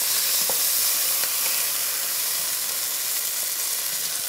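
Cubes of wild boar meat sizzling steadily as they sear in a hot stainless steel pot, with a ladle stirring them and giving a few faint scrapes.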